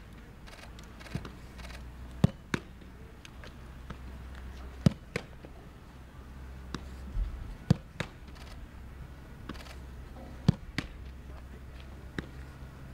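A football being played and caught during goalkeeper training: sharp thuds and glove slaps, mostly in pairs about a third of a second apart, coming roughly every three seconds over a low steady hum.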